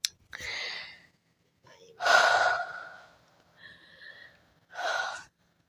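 A person making breathy puffing and hissing noises with the mouth, four in a row, the second one the loudest.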